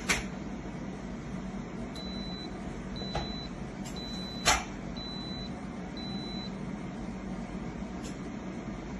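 Espresso machine running with a steady machine hum, joined by five short high beeps about one a second around the middle, and a few sharp clicks or knocks, the loudest about halfway.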